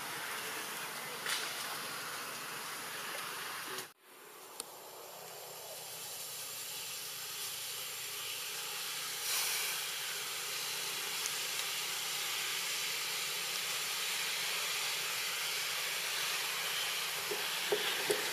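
Steady high hiss of outdoor background noise with a few faint clicks. It drops out for a moment about four seconds in and builds back up over the next few seconds.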